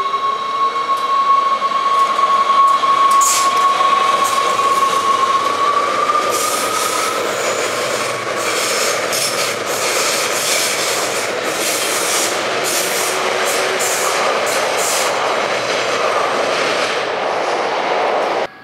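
NS Sprinter electric multiple unit pulling away from a platform: its traction motors give a high whine that rises in pitch as it picks up speed. Then the carriages pass with a steady rush and a run of wheel clicks and clatter on the rails, and the sound cuts off suddenly near the end.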